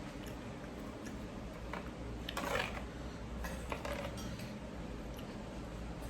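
A few light clicks and scrapes of eating utensils against a bowl, the loudest a short scrape about two and a half seconds in, over a steady low hum.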